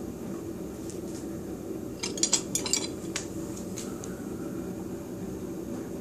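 Steel carving chisels and gouges clinking against one another as one is picked out of a row of them: a quick cluster of clinks about two seconds in, then two lighter ones, over a steady low hum.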